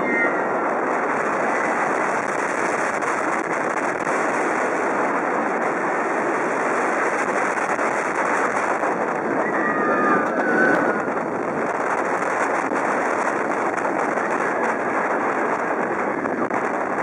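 Wind rushing over the microphone and the rumbling roar of an inverted roller coaster train running along its track at speed, with riders screaming briefly about ten seconds in.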